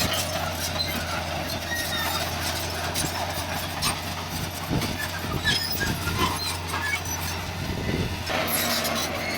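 Heavy diesel earthmoving machinery running steadily under work, with irregular metallic clanks and knocks throughout.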